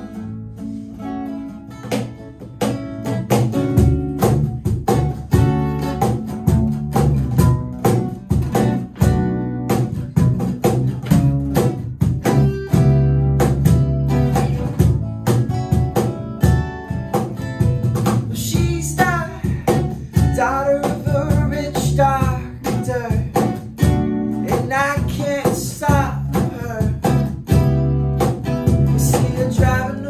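A small acoustic band plays a song. Strummed acoustic guitars, a bass guitar and a cajón keep a steady beat, and a singing voice comes in about two-thirds of the way through.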